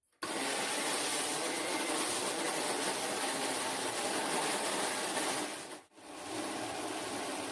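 Electric mixer grinder with a stainless steel jar running, grinding leftover cooked rice into a paste. It starts abruptly, stops for a moment about six seconds in, and starts again.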